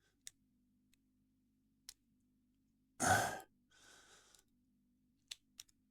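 A person sighs audibly about three seconds in, followed by a fainter trailing breath. A few light clicks come before and after it.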